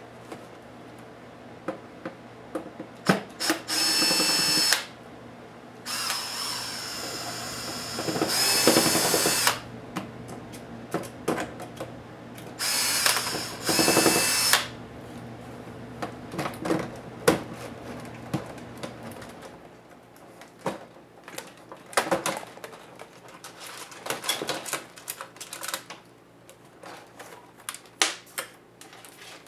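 Cordless electric screwdriver running in four short bursts of motor whine, backing out the screws of a laptop's display assembly. Afterwards there are plastic clicks and rattles as the loosened parts are handled.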